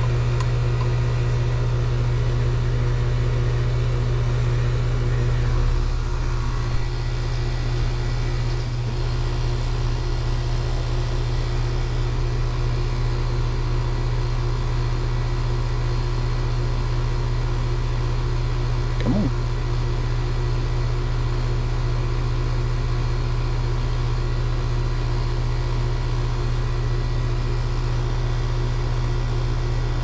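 Carrier heat pump outdoor unit running, heard up close: a steady low compressor hum with the condenser fan running alongside.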